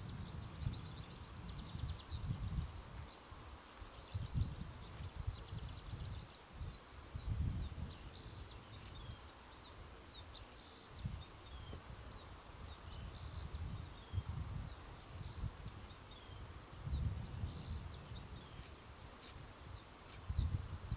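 Small birds chirping and singing, over an irregular low rumble of wind buffeting the microphone.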